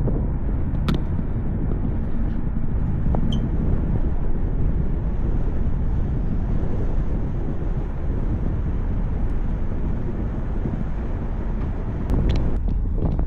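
Steady wind rushing over the microphone on a moving cable car, with a few brief clicks.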